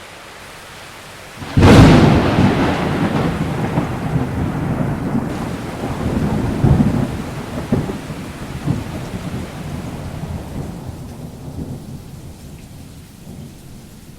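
Thunderclap about a second and a half in, followed by rolling thunder rumbling over steady rain, slowly fading.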